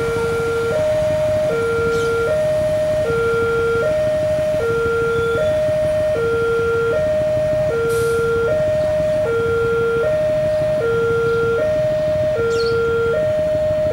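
Railway level-crossing warning siren sounding its two alternating tones, high and low, each held about three-quarters of a second and repeating steadily over a low rumble.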